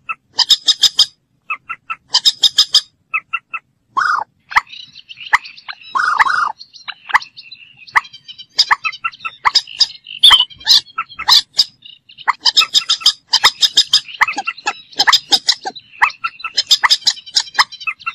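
Moorhen calling: repeated bursts of rapid, sharp clicking notes about a second long, with a couple of lower, longer notes in between. The bursts come thicker and overlap in the second half.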